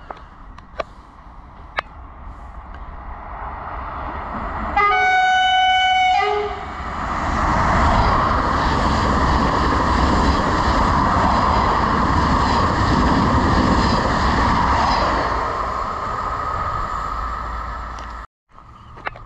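A train approaching and sounding its horn once for about a second and a half, then running past close by with a loud, deep rumble that fades away before the sound cuts off suddenly near the end.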